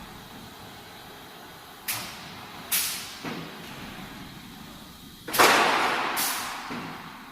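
A roll-forming line for steel trailer side-board profiles at work, with a steady background noise. About two seconds in come three sharp metallic knocks, and past the middle a louder, longer crash that dies away over a second or two.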